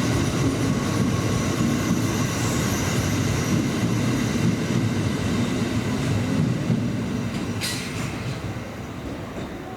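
Kintetsu electric train running along the platform with a heavy rumble and a thin wheel squeal, the noise easing off over the last two seconds. A brief high hiss about eight seconds in.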